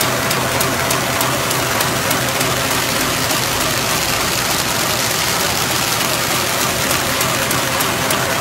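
Paper bag making machine running: a steady, even hiss-like mechanical noise with a low hum underneath.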